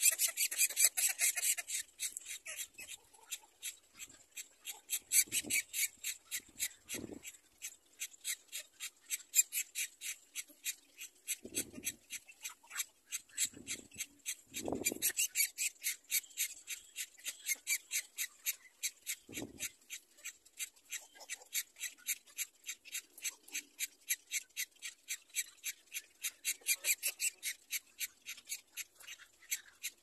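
A steady, fast series of short high chirps, about four a second, from a calling animal, with a few soft low thumps in between.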